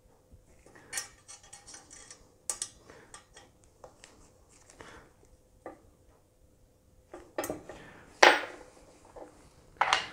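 Light metallic clicks and clinks of an AR-15 upper receiver's aluminium free-float handguard being handled and fitted over the barrel nut. A couple of louder knocks come near the end, the last as the upper is set down on the wooden workbench.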